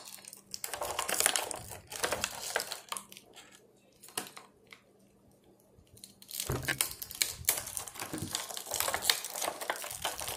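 Clear plastic blister packaging crinkling and crackling as fingers work tight-fitting spare hands of an action figure out of the tray, stopping for a couple of seconds in the middle.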